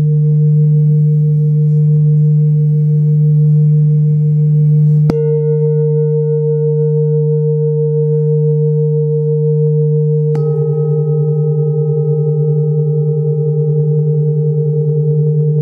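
Large hand-hammered metal singing bowls ringing with deep sustained tones. A bowl is struck with a padded mallet about five seconds in and another about ten seconds in; each strike adds a higher set of ringing tones over the ones still sounding. After the second strike the ringing swells and fades in a steady wavering pulse.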